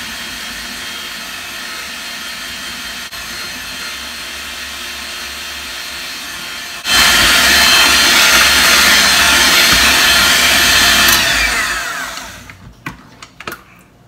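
Handheld electric mixer whipping cream in a stainless steel bowl. It runs steadily, gets louder about seven seconds in, then is switched off about eleven seconds in and the motor winds down with a falling whine. A few light clicks and knocks follow near the end.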